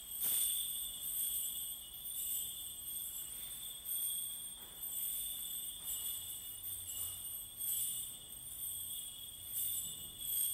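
Metal percussion instruments struck every second or two. Each strike sets off high bell-like ringing that hangs on and overlaps the next.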